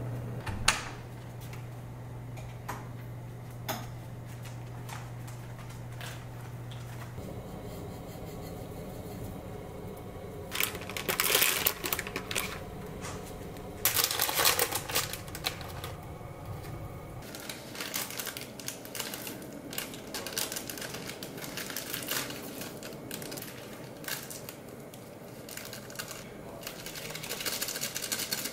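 Kitchen handling sounds: a plastic food packet crinkling as it is torn open, in two spells about eleven and fourteen seconds in, then a run of light clicks and rustles of packaging and utensils. A low steady hum lies underneath and stops about seventeen seconds in.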